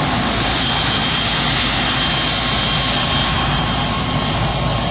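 Steady, loud rushing of road and wind noise from a moving car.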